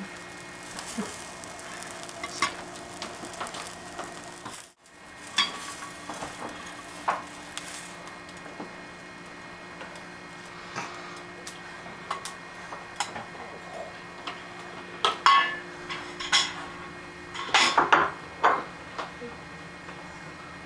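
Slotted spatula scraping and stirring pancake batter in a nonstick frying pan, with light sizzling. After a short break, more scraping, then a few sharp knocks and clatter of dishes near the end.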